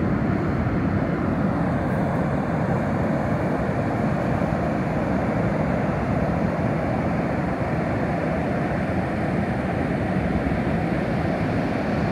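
Ocean surf breaking on a sandy beach: a steady low rushing noise with no single wave standing out.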